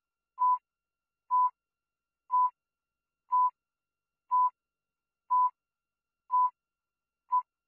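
Countdown leader beeps: a short, steady single-pitch beep once a second, eight times, the last one a little shorter, with silence between.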